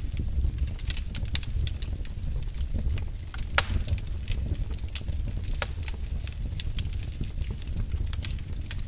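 Wood fire in a fireplace crackling: a steady low rumble of flame with irregular sharp snaps and pops, one louder pop about three and a half seconds in.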